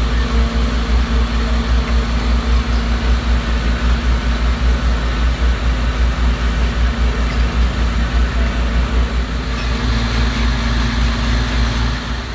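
Heavy fire-truck engines running steadily at the scene, a deep pulsing rumble with a constant hum on top; a second, deeper engine note joins about ten seconds in.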